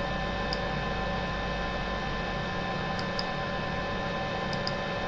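Steady electrical hum made of several fixed tones, with a few faint mouse clicks, some of them in quick pairs.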